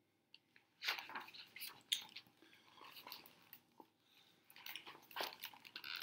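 Paper rustling and crackling as a picture book's page is handled and turned, in irregular crinkly bursts starting about a second in.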